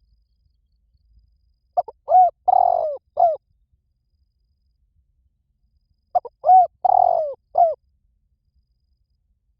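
Spotted dove cooing: two phrases about four seconds apart, each a short run of low coos with a longer drawn-out note in the middle.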